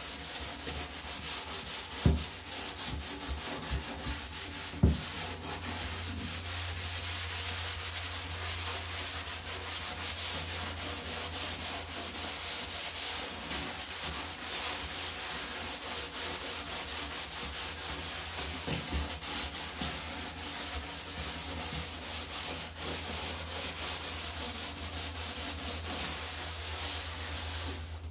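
A soapy sponge scrubbing a black plastic garbage can: fast, even back-and-forth scrubbing strokes, with two sharp knocks about two and five seconds in.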